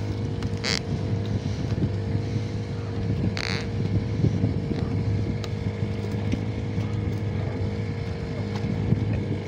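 A small engine running steadily on a fishing boat, a constant hum, with two brief hissing noises about a second and three and a half seconds in.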